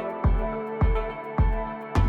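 Background music with a steady beat, a little under two beats a second, over sustained held notes.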